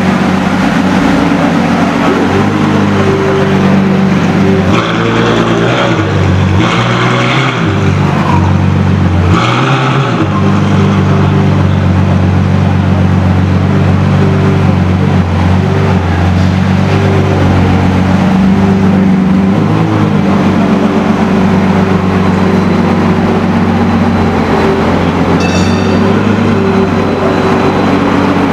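Ferrari F12berlinetta's V12 engine, in Novitec N-Largo form, idling steadily. It is briefly revved three times between about five and ten seconds in.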